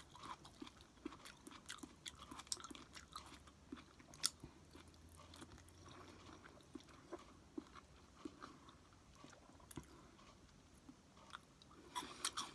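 A person chewing food close to the microphone: faint, irregular soft mouth clicks and small crunches.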